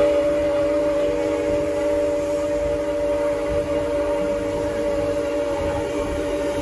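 Steam locomotive whistle, former Canadian National no. 89, sounding one long chord of several tones as the train nears a grade crossing, easing off slightly toward the end. The low rumble of the train rolling along runs underneath.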